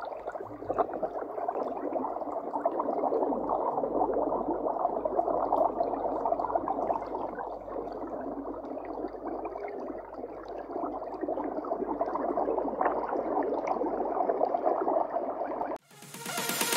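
Steady underwater bubbling and gurgling sound effect. Near the end it cuts off suddenly and an electronic dance music jingle starts.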